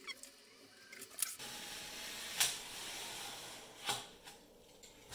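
Snap-off craft knife drawn through 30 mm XPS foam board along a steel rule: a steady scratchy rasp lasting a couple of seconds, starting about a second and a half in, with a sharp click in the middle and another near the end.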